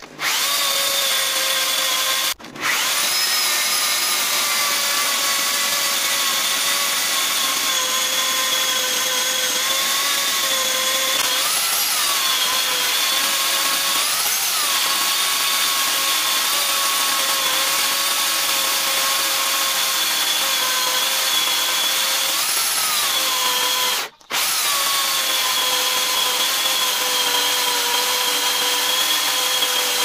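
Corded electric chainsaw (Dnipro-M DSE-24DS, 40 cm bar) on a homemade rail sawmill ripping a walnut log lengthwise into boards: a steady high motor whine. It cuts out for a moment twice, about two seconds in and again near the end, and its pitch lifts briefly a few times along the cut.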